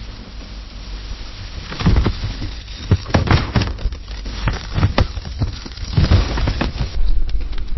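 Wood fire in a fireplace crackling, with irregular sharp pops and snaps over a low steady rumble of the flames; the crackling picks up about two seconds in.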